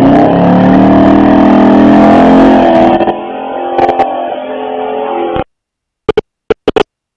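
Car engine held at high revs for a burnout, its pitch climbing over the first three seconds, then running lower and quieter. The sound cuts off abruptly about five and a half seconds in, followed by a few very short clipped snatches.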